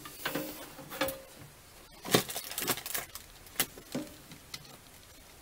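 Handling noise as a soldering station is unpacked: a string of light knocks, taps and rustles from hands working the packing material and cables against the metal case, loudest about two seconds in.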